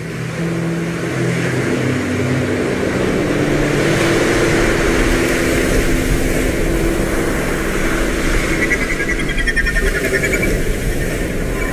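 Ocean surf breaking and washing in a steady roar, with a few low, steady tones underneath.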